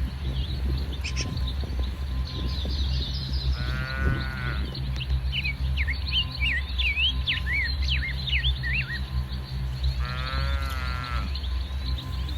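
A young animal of the herd bleating twice, each call about a second long, while birds chirp rapidly between the calls over a steady low rumble.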